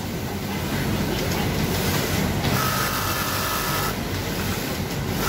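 Brother two-needle industrial lockstitch sewing machine stitching a short run, with a whine and rattle that starts about two and a half seconds in and stops about a second and a half later. Under it runs the steady mechanical hum of a factory floor full of machines.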